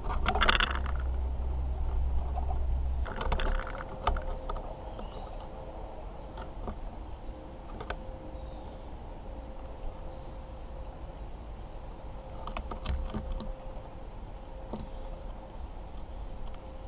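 Water pistol jets spattering onto a wooden bird table in short hissing bursts, about half a second in and again around three seconds in, followed later by scattered sharp ticks on the wood. A low rumble fills the first few seconds, and a faint steady hum runs under the rest.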